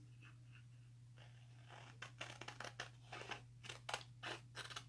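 Scissors snipping through a silkscreen stencil sheet: quiet at first, then a run of short, quick cuts starting about two seconds in.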